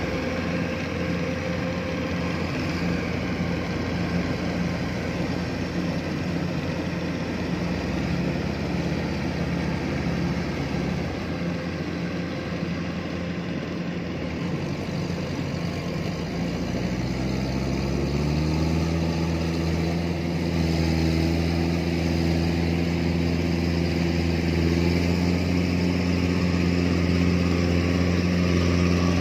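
Kubota DC-105X rice combine harvester's diesel engine running steadily under load while harvesting, with machinery noise over it. About two-thirds of the way through, the engine pitch rises over a couple of seconds and holds at the higher speed.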